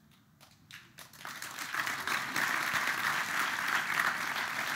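Audience applause: a few scattered claps at first, building about a second in into steady clapping from the whole hall.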